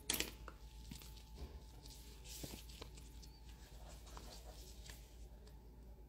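Faint handling of a silicone nail-sticker sheet with metal tweezers: a few light ticks and a soft rustle as a sticker is worked loose from its backing.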